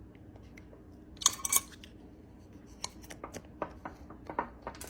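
Light clicks and taps of kitchen things being handled, with a brief cluster of sharp clinks about a second in and scattered single taps after.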